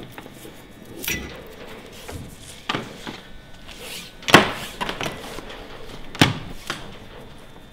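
Handling noise from dinghy rigging: five sharp knocks and clacks, the loudest a little past the middle, as rope and blocks are pulled and moved along an aluminium boom.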